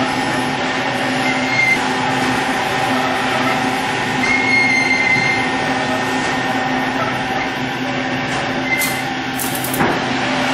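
Two-roll rubber mill running, its steel rolls working a sheet of reclaimed butyl rubber: a steady mechanical drone with short high squeaks now and then and a single sharp knock near the end.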